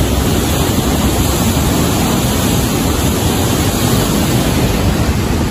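River in flood rushing past, a steady, unbroken noise of fast-moving water.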